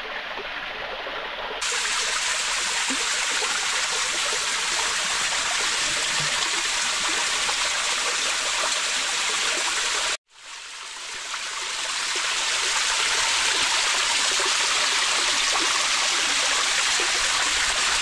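Water of an underground cave waterfall rushing and splashing as one steady noise. It drops out abruptly for a moment about ten seconds in, then swells back.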